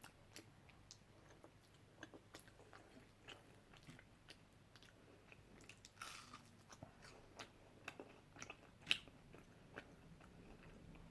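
Faint chewing and mouth sounds of someone eating Chinese takeaway food, with scattered small clicks and a sharper click about nine seconds in.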